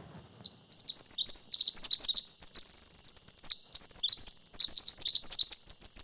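Recorded song of a Pacific wren played back over loudspeakers: a long, rapid, unbroken run of high-pitched tumbling notes and trills.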